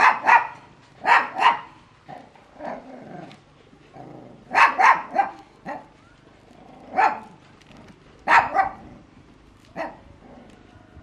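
A dog barking over and over, in short runs of one to three barks with pauses of a second or two between them.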